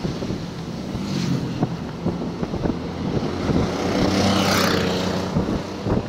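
Small motorcycle engine running steadily under a rider, with wind thumping on the microphone. About four seconds in, a hiss of tyres on the wet road swells as another vehicle goes by.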